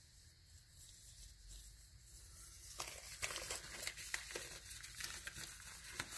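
A disposable glove being pulled on by hand: faint rustling and crinkling with small snaps and clicks, picking up about three seconds in.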